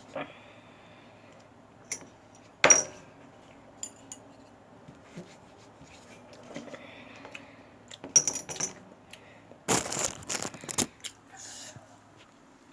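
Kitchen clatter: metal utensils and cookware clinking and knocking in scattered single strikes, with a dense run of clattering about ten seconds in.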